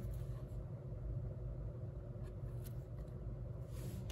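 A trading card in a rigid plastic holder handled and turned over: a few faint rustles and light plastic clicks, the strongest near the end, over a steady low hum.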